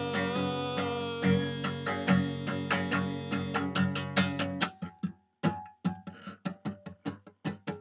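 Acoustic guitar strummed in ringing chords, then, a little over halfway through, picked more quietly one note at a time.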